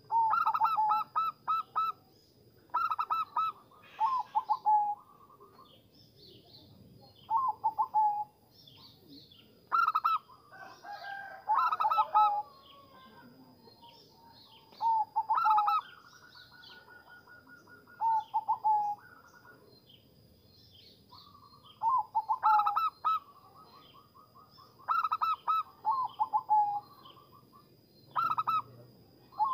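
Zebra doves calling: short phrases of quick, staccato cooing notes, a phrase every two to three seconds, with softer overlapping calls in between and a faint steady high tone underneath.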